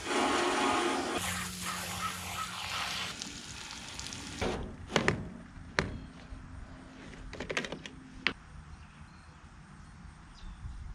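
Garden hose spraying water into an empty steel fuel tank to rinse it out, a steady rushing hiss for about four seconds. Then it stops, and several sharp clicks and knocks follow.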